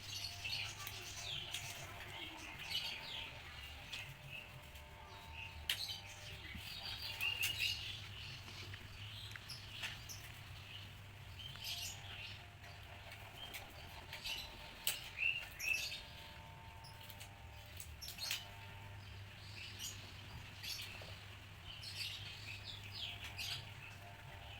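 Faint small-bird chirping throughout, mixed with scattered clicks and light rustling from protective gloves and gear being put on, over a low steady hum.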